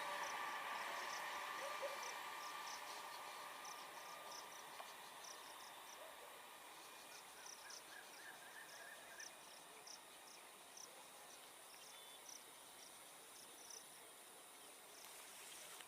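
Crickets chirping faintly in a steady, regular rhythm of short high chirps, a little more than one a second, while the last of the passing electric train's noise fades away over the first few seconds.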